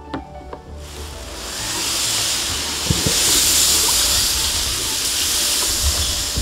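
Tall grass and reeds rustling and brushing against a plastic kayak as it is hauled over a grassy bank, a steady hiss that builds about a second in. A couple of dull knocks come about three seconds in.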